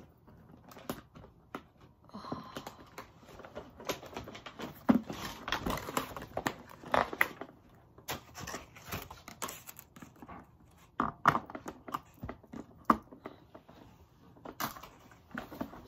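Toy packaging being handled and opened: irregular crinkling and tearing of plastic and cardboard, with many small clicks and knocks of plastic parts.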